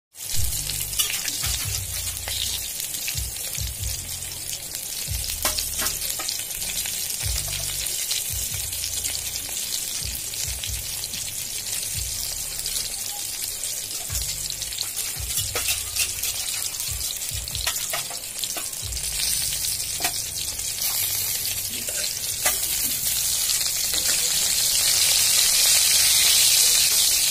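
Eggplant slices sizzling as they shallow-fry in oil in an aluminium pan, with scattered pops and clicks. The sizzle grows louder near the end as a spatula goes in to turn the slices.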